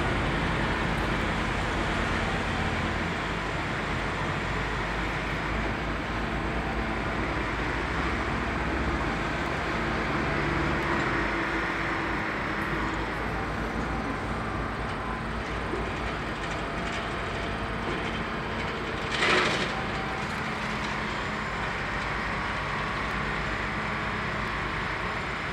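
Continuous diesel rumble of rail yard machinery, a little louder at first as a tanker tractor-trailer pulls away, then steady. One brief sharp noise about 19 seconds in.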